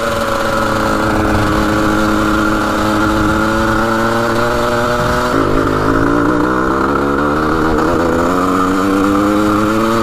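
1980 Suzuki RM125's 125cc two-stroke single-cylinder engine running under load as the bike is ridden. It holds a high, steady pitch, drops suddenly about five seconds in, then climbs again toward the end. The owner thinks the rings are worn.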